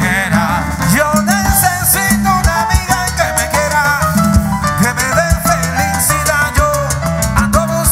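Live Cuban timba band playing salsa, with sung vocals over a busy percussion section.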